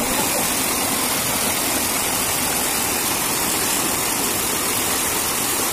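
Water of a small stream cascade rushing steadily over rocks close by, an even hiss with no change in level.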